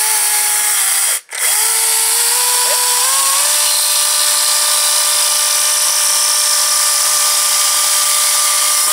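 Makita DUC400 36 V (18 V x2) brushless cordless chainsaw running with a high motor whine, drawing about 14 to 18 A, which means it is cutting through a softwood 4x4 post. The whine cuts out briefly about a second in, then restarts and steps up in pitch over the next two seconds before holding steady.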